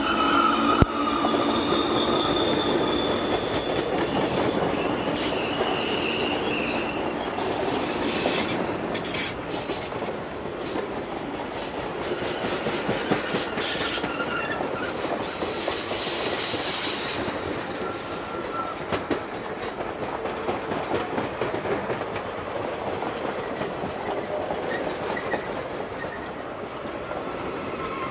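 Passenger train cars rolling past close by: steady wheel-on-rail noise with clicks over the rail joints and a high wheel squeal that comes and goes.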